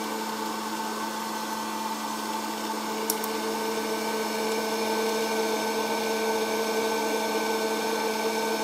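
Hot-air popcorn popper's fan motor running with a steady hum and whir as it blows hot air over the kernels, with one sharp click about three seconds in as a first kernel pops.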